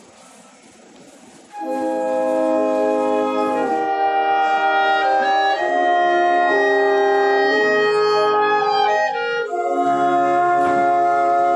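Small wind ensemble of clarinets, flute and brass, trombone among them, playing an instrumental introduction in sustained chords. The ensemble enters together about a second and a half in and breaks off briefly near the end before the next phrase.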